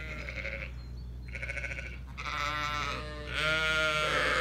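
Zwartbles sheep bleating: about five wavering calls one after another, the last one the loudest.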